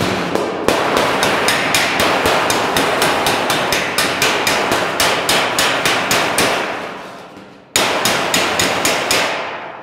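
Panel-beater's slapper striking hard and fast on a freshly heated spot of a steel car bonnet, about four or five blows a second, knocking the stretched high spot back down during heat shrinking. The blows stop briefly about three-quarters through, then another run follows.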